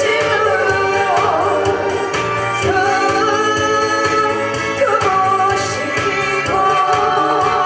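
A singer performing a Korean popular song over an instrumental backing with a steady beat, holding long notes.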